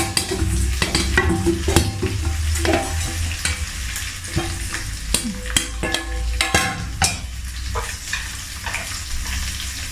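Dried anchovies (ikan bilis) frying in hot oil with a continuous sizzle, while a spatula stirs them and clicks and scrapes against the pan many times. A steady low hum runs underneath.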